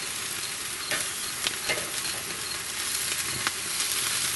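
Skin-on chicken thighs sizzling over charcoal on a pit barrel cooker grate as the skin crisps: a steady hiss with scattered crackling pops.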